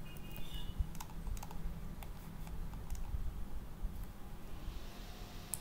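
Computer keyboard keys being tapped, a scattering of single short clicks at uneven intervals over a low steady hum.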